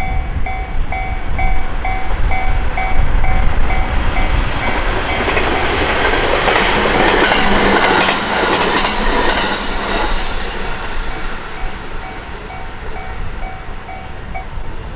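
Japanese level-crossing warning bell ringing steadily at about two strokes a second while a train passes through the crossing; the train noise builds to its loudest about halfway through, drowning the bell, then fades, and the bell stops shortly before the end.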